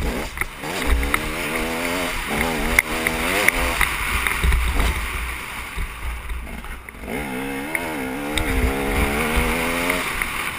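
Dirt bike engine revving hard and easing off again and again as it is ridden round a motocross track, the pitch climbing and dropping through the gears. It backs off for a couple of seconds about halfway through, then picks up again. Wind buffets the helmet-mounted microphone throughout.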